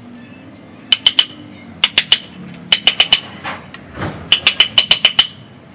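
Chisel carving into the deadwood of a ficus bonsai stump: quick runs of sharp metallic taps, each with a short ring, in groups of three to eight. A brief scrape and a dull knock come a little past the middle.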